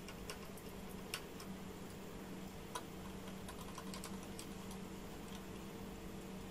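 Scattered small clicks and ticks of a screwdriver driving the CPU cooler's mounting screws and of the metal cooler being handled, over a faint steady hum. The sharpest clicks come about a quarter second, a second, and nearly three seconds in.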